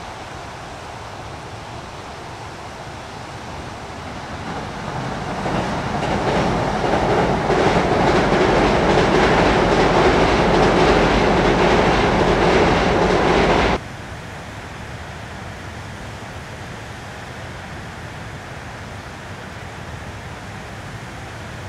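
Electric passenger train crossing a steel girder railway bridge: its rumble and repeated wheel clacks build up over a few seconds and cut off suddenly about 14 seconds in. After that, a steady quieter background hiss.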